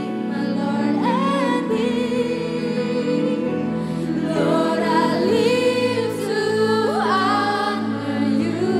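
Female worship singers singing a contemporary Christian worship song, the voices wavering with vibrato over sustained instrumental chords.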